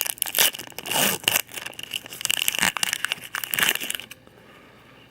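Plastic booster pack wrapper being crinkled and torn open by hand in irregular bursts of rustling, stopping about four seconds in.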